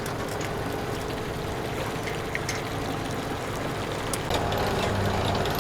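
Steady rushing and trickling water with a low, even hum underneath. The sound shifts about four seconds in.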